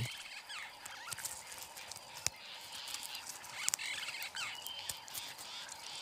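Faint natural ambience of scattered short, high chirps and squeaks from small animals, with a single sharp click a little past two seconds in.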